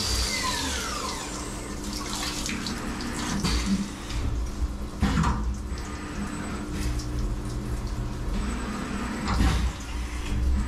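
CNC vertical machining centre's spindle winding down with a falling whine, then coolant splashing and dripping in the enclosure with a few heavy clunks of the machine changing tools. A steady high whine returns near the end as the spindle comes back up to speed.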